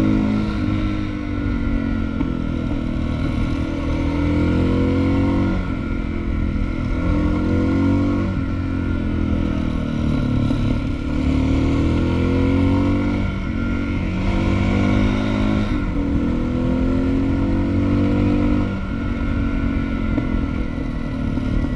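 Suzuki DR650's single-cylinder four-stroke engine under way, heard from on the bike. It repeatedly climbs in pitch under throttle and drops sharply at each gear change or roll-off, several times over.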